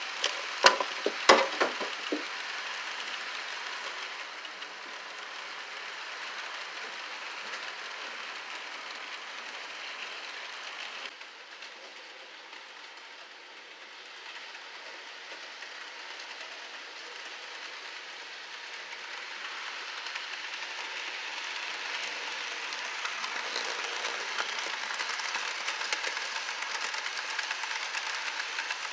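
HO scale model freight cars rolling along the track, a steady light rolling hiss, with a cluster of sharp clicks about a second in. The rolling drops off at about eleven seconds and grows louder again toward the end.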